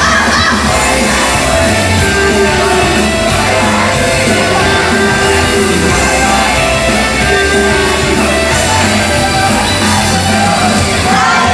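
Upbeat idol-pop song played loud over a concert PA, with the group singing and fans shouting along. The bass drops away right at the end as the song finishes.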